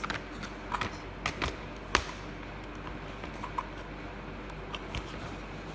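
Hard plastic clicks and knocks of a track spotlight's adapter being pushed and turned into its mounting track, a handful of sharp clicks with the loudest about two seconds in.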